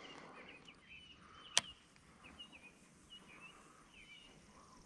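Faint bird chirps: short high calls repeated every half second or so, with a single sharp click about one and a half seconds in.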